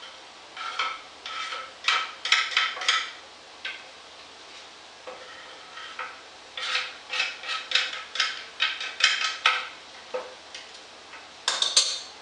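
Chopped garlic and parsley scraped and knocked off a wooden cutting board into a pot of potatoes: runs of quick clattering taps and scrapes, in three bursts with pauses between.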